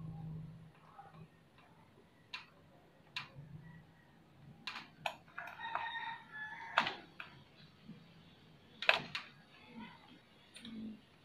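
Faint, scattered sharp clicks and taps at irregular intervals, with a short faint pitched call about halfway through.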